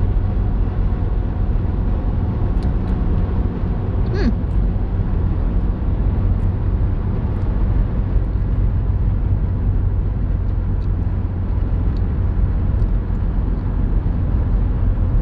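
Steady low rumble of car cabin noise from the engine and road, with a brief rising squeak about four seconds in.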